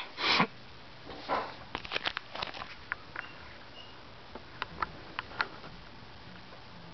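Two short rustling bursts in the first second and a half, then scattered light clicks and taps: handling noise from a binder of plastic card-sleeve pages close to the microphone.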